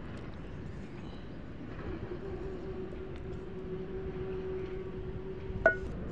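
Steady low rumbling noise with a faint held hum, then one sharp knock with a short metallic ring near the end as the wooden stirring stick strikes the metal pot of boiling soap.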